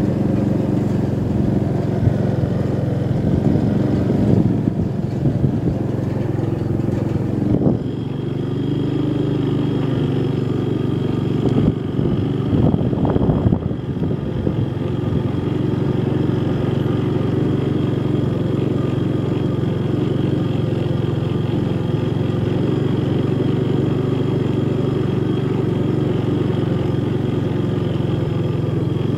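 Honda Big Red three-wheeler's single-cylinder four-stroke engine running under load while towing a hay rake. It sounds rough, with irregular knocks and rattles over the first half, then settles to a steady drone.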